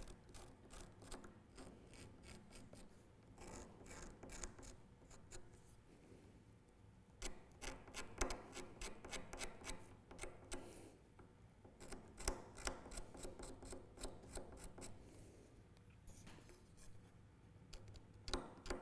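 Small hand chisel cutting and scraping antler in short pushing strokes: faint, irregular scratchy strokes that come in clusters.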